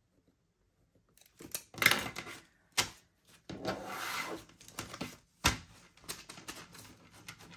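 A stack of paper dollar bills rustling and rubbing as it is picked up and handled. Nearly silent for the first second, then a few sharp knocks against the tabletop, the loudest about five and a half seconds in.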